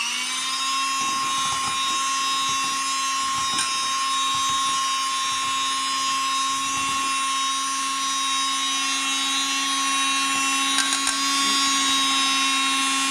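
Electric blender running at one steady speed, mixing chocolate cake batter (flour, cocoa, sugar, egg, oil, milk) to break up the lumps. It is already up to speed as the sound begins, with uneven low thuds from the batter during the first several seconds.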